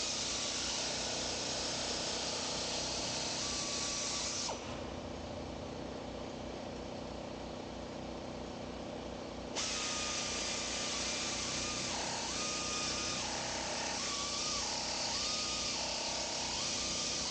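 A nibbler cutting sheet steel in two runs, about four seconds and then about eight seconds, with a hissing cut and a whine that steps down and up in pitch as it bites through the metal.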